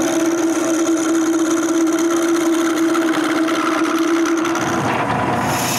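Wood lathe running with a steady hum while a hand turning tool cuts into a spinning maple spindle, a scraping hiss of wood being shaved. The sound changes abruptly about five seconds in.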